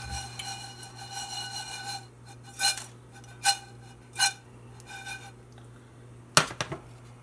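Sliced almonds swishing across a nonstick skillet as the pan is tossed three times, then a sharp knock and two small clatters as the pan comes down on the glass cooktop. A steady high whine sounds through the first two seconds.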